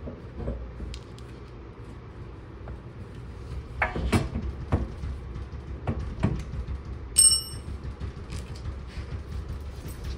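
Scattered metal knocks and clinks of a steel hand tool working against a car's rear hub and suspension knuckle. About two-thirds of the way through there is one short, bright metallic ring, the loudest sound.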